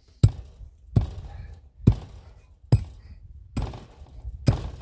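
Hand tamper pounding dirt to pack it down: six heavy thuds, about one a second, each a sharp strike with a low thump.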